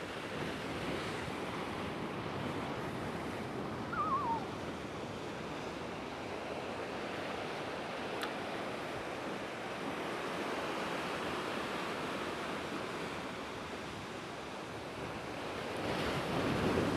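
Rough ocean surf breaking and washing against the rocks of a river-mouth jetty, a steady rush that swells near the end. A brief wavering high call comes about four seconds in.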